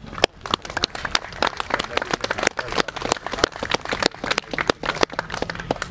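A small group of people clapping: irregular individual claps, several a second, that begin abruptly and stop near the end.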